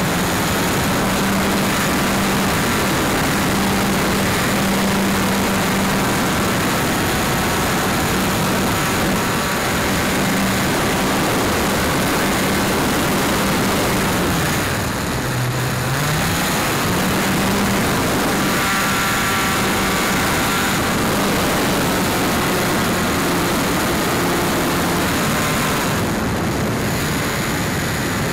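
Engine and propeller of a radio-controlled model airplane, heard from a camera mounted on the plane, running steadily under a loud rush of air. About halfway through, the engine note drops for a moment and then rises back up.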